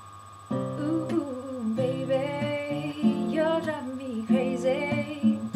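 Acoustic guitar playing a song intro, starting about half a second in, with a female voice singing wordless, wavering notes over it.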